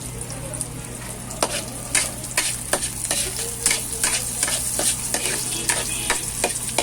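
Aromatics sizzling in hot oil in a pan as they are sautéed, stirred with a spatula that scrapes and clicks against the pan at irregular moments.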